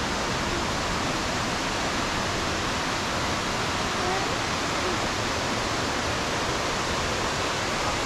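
Waterfall rushing, a steady, unbroken hiss of falling water.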